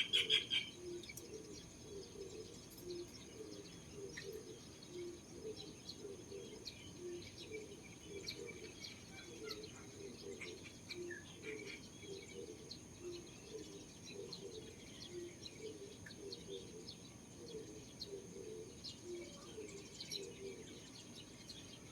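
Birds calling: a loud burst of chirps in the first second, then fainter scattered chirps over a low call repeated steadily, about once or twice a second.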